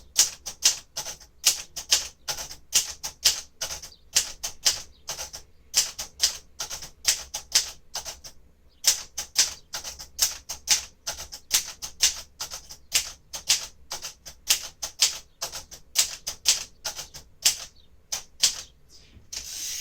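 1957 Royal Aristocrat manual typewriter being typed on: a steady run of sharp key strikes, about three a second, with a short pause about eight seconds in, as the keys are run through in a character test.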